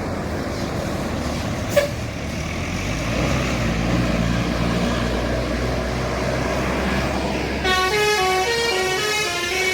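Heavy bus engine passing with a low rumble that grows louder, with a brief sharp click about two seconds in. Near the end a musical telolet air horn starts playing a quick tune of changing notes.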